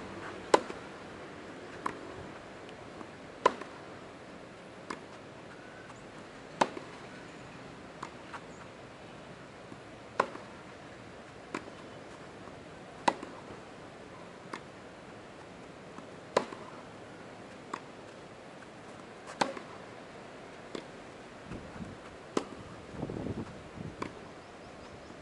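Tennis ball struck back and forth with rackets in a rally, one sharp pock about every second and a half, alternate hits louder and fainter.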